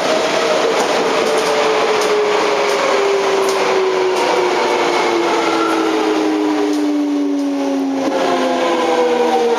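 Running sound of a Toei 5300 series subway train heard inside the car: the traction motors whine in tones that fall slowly in pitch as the train slows, over steady wheel and tunnel rumble.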